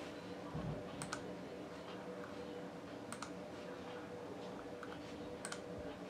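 Computer mouse clicks: three quick pairs of clicks about two seconds apart, with a few fainter ticks between, over a steady low hum.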